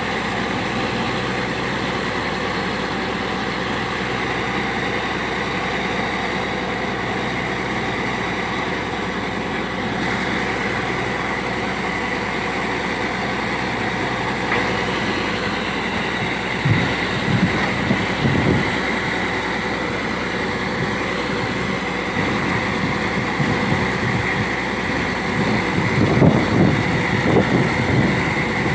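Borewell drilling rig running steadily with a steady high whine over it. Spells of low knocking and rattling come a little past halfway and again near the end.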